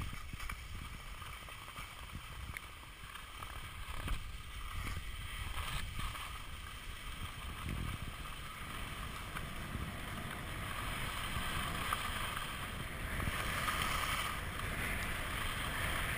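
Wind noise on the microphone of a moving camera, with the hiss of skis sliding over packed snow that grows louder near the end.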